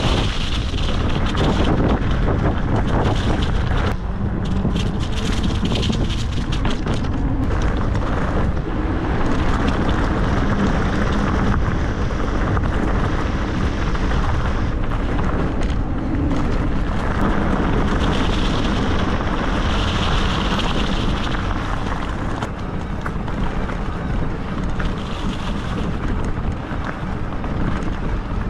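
Wind rushing over a mountain bike's action-camera microphone, mixed with the tyres rolling over rough trail. Frequent short knocks and rattles from the bike run through it.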